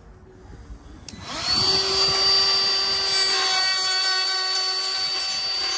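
Ryobi ONE+ 18V cordless trim router switched on with a click about a second in, spinning up quickly to a steady high whine as it cuts a chamfer on the end of a timber decking board.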